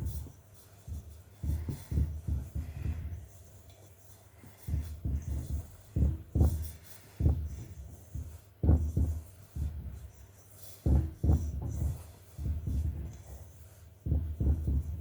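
Hands rubbing butter into flour in a mixing bowl: irregular clusters of dull, low thuds and rubbing as the fingers work the crumbly dough.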